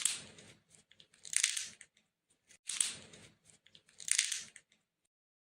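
Pecan shells cracking and crunching: four crunches about a second and a half apart, each followed by small crackles as the shell breaks apart.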